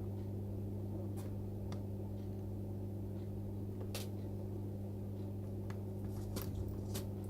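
Steady low electrical hum at the repair bench, with a few faint light clicks of tools at the board during soldering.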